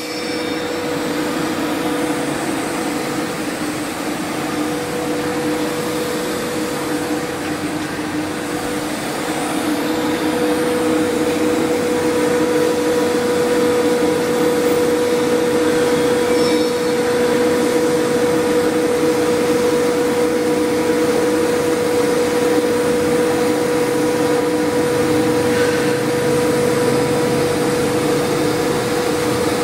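TIG welding arc burning on a 2-inch pipe joint welded in the 6G position: a steady hiss with a constant hum, growing slightly louder about ten seconds in.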